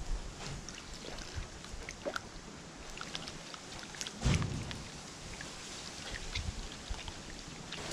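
Wooden spoon stirring thin porridge in a metal pan, the liquid swishing, with scattered small ticks; water is poured in from a plastic jug at the start. A brief low rumble comes about four seconds in.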